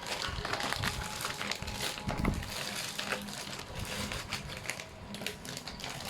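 A person chewing crunchy food close to the microphone: a steady run of small crunches and crackles.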